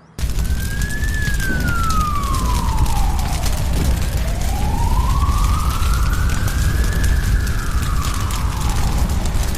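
Siren wailing slowly up and down, each rise and fall taking several seconds, over a steady low rumble.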